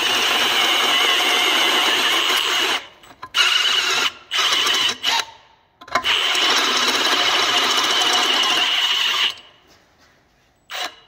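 Electric drill turning a step drill bit through the steel tube of a VW Beetle front axle beam, enlarging a hole to 12 mm. It runs steadily with a high whine for about three seconds, gives several short trigger bursts, then runs steadily again for about three seconds before stopping.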